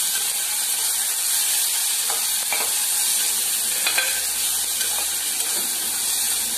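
Onions, tomatoes and ginger-garlic paste sizzling in hot oil in an open aluminium pressure cooker, stirred with a metal spatula that clicks and scrapes against the pot a few times.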